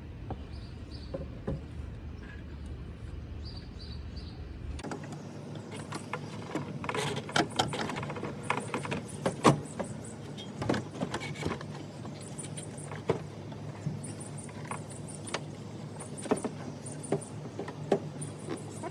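Irregular clunks, knocks and scraping as the radiator and cooling fan are worked by hand in a car's engine bay. A steady low hum runs under the first few seconds and stops abruptly about five seconds in, after which the knocks come thick and fast.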